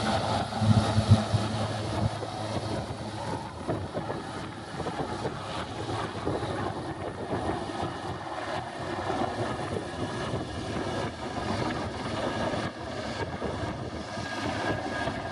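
Eurocopter Super Puma twin-turbine helicopter flying past, its rotor and turbine making a steady sound, with a few louder low thumps about a second in.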